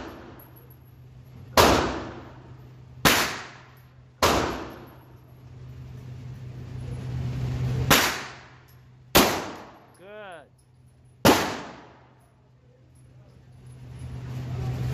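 Six semi-automatic pistol shots fired one at a time at uneven intervals, each a sharp crack that echoes off the walls of an indoor range. Under the shots runs a steady low hum, and a brief pitched sound comes between the fifth and sixth shots.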